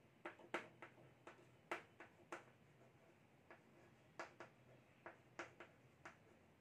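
Chalk clicking and tapping on a blackboard as words are written: about a dozen faint, irregular ticks.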